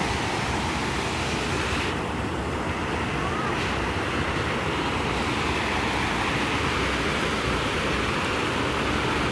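Water pouring over a low weir into a river pool: a steady, unbroken rush.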